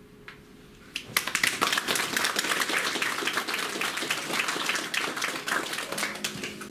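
Small audience applauding, starting about a second in and dying away near the end.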